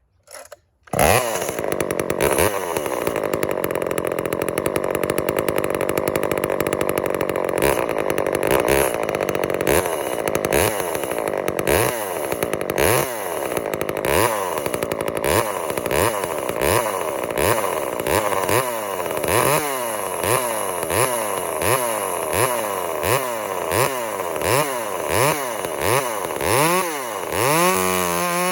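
Two-stroke chainsaw starts suddenly about a second in and runs at high revs, cutting dry hard oak with a freshly hand-filed square-ground chain. From about halfway on, the engine speed repeatedly falls and climbs back, roughly once a second.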